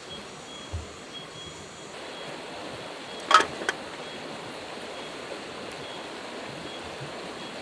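River water flowing steadily, with a sharp crack of dry twigs a little past three seconds in and a smaller crack just after.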